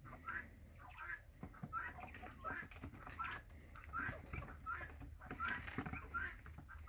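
Faint, repeated short peeps from a quail, a couple a second, made while the dead bird is handled and skinned. The processor puts such noises down to air left in the lungs being pushed across the vocal cords.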